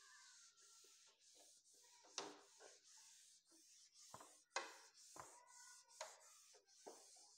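Whiteboard duster wiping marker off a whiteboard: faint rubbing strokes, with half a dozen short knocks of the duster against the board.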